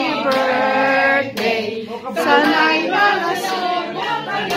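A group of women singing a birthday song together, with long held notes and a short break about two seconds in.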